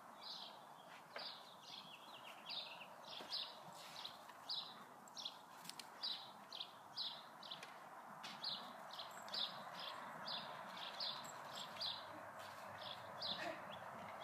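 A small bird chirping over and over, short high chirps about three every two seconds, faint over a steady outdoor background hiss.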